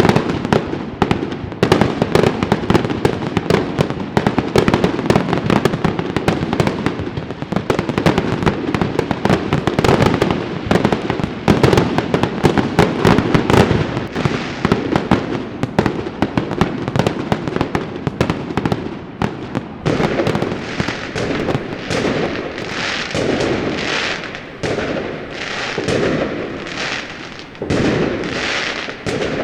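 Fireworks going off: a dense, rapid crackle of many small bangs. From about twenty seconds in, this gives way to separate, brighter bursts about one a second.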